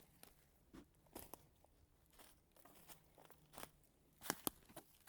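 Footsteps crunching along a woodland trail: faint, irregular crackles, with two sharper cracks near the end.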